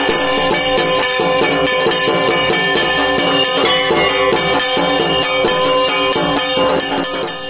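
Bell-metal gong (kansar) beaten with a wooden mallet in a fast, steady rhythm of several strikes a second, the ringing building into a dense metallic clangour that eases off near the end.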